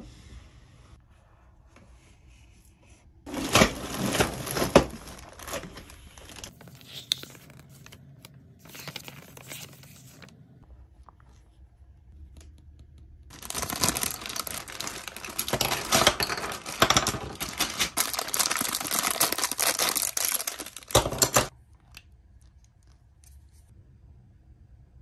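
Plastic packaging bags of small building-block pieces being torn open and crinkled, with little clicks of plastic pieces among them. There is a short burst about three seconds in and a longer run from about 13 to 21 seconds.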